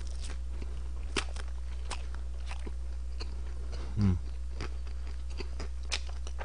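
Close-miked chewing of crisp fried food, with scattered crunches and wet clicks of the mouth. About four seconds in, a brief low 'mm' from the eater is the loudest sound.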